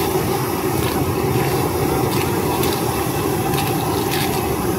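Gas wok burner running with a steady low rush, with a few light clinks of metal on metal over it.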